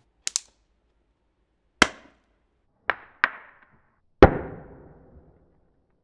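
A series of sharp, hard impacts: a quick pair, a single hit, another pair, then the loudest strike, which rings and rattles for about a second.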